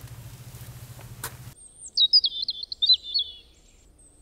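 A low steady hum that cuts off suddenly about a second and a half in, then a small bird chirping and twittering in quick high notes for about a second and a half.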